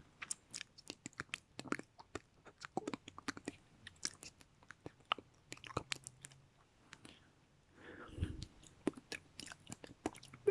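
Close-miked ASMR mouth sounds: wet lip and tongue clicks and smacks coming in quick, irregular succession, with a short breathy sound about eight seconds in.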